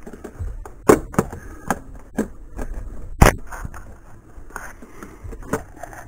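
Irregular metallic clicks, knocks and scrapes of a wrench, bolts and spacer washers being handled on a car's lower door hinge, with the sharpest knock about three seconds in.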